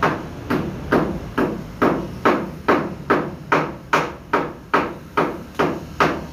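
Steady, evenly paced hammer blows, about two a second, each a sharp strike with a short ringing tail.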